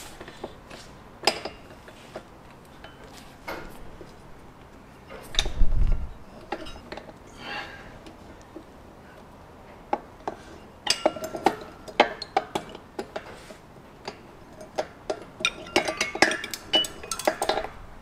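Metal hand tools clicking and clinking: a torque wrench, socket and extension being fitted and worked on the cylinder hold-down nuts, in scattered clicks with quick runs of them later on. A single dull thump comes about five and a half seconds in.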